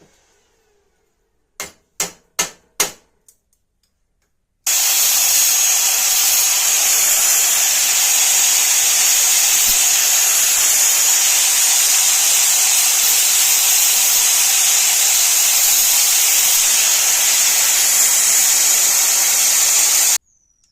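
Four sharp knocks in quick succession, then a power tool running steadily at a constant pitch for about fifteen seconds before it cuts off abruptly.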